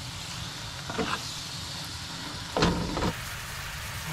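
Steak bites, butter and garlic sizzling steadily in a hot cast-iron skillet, with two short louder sounds, one about a second in and a stronger one near the end.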